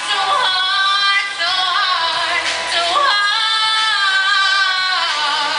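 Glee club singing a pop-style number with musical accompaniment, female voices leading, with several long held notes.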